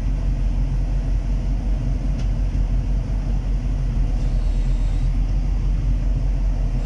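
Komatsu PC220-7 excavator's six-cylinder diesel engine running steadily at low throttle, heard from inside the cab, with the hydraulic pump briefly put under load about four seconds in.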